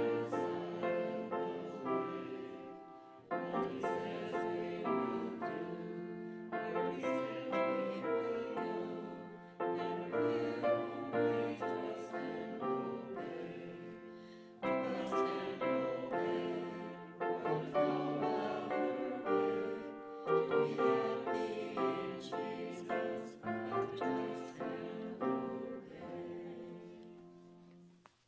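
Slow instrumental music in phrases of sustained chords, each phrase starting loud and dying away; the music fades out near the end.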